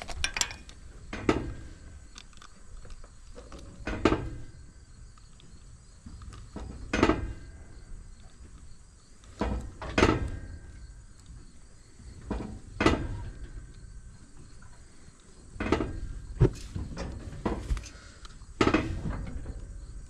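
Metal clanks and knocks from a steel cattle squeeze chute as a bull shifts in it during semen collection, coming irregularly every two to three seconds.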